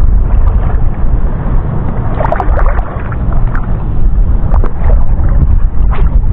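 Wind buffeting the camera microphone in a heavy, steady rumble over choppy sea water, with a few short clicks and splashes about two seconds in and again near the end.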